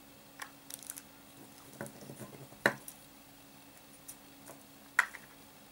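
Light handling noises of fishing tackle and small tools on a tabletop: scattered soft ticks and rustles, with two sharper clicks, one about midway and one near the end, over a faint steady hum.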